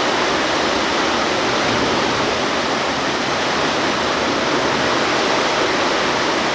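Rushing water of a heavy tropical downpour: a steady, unbroken rush of rain and running water.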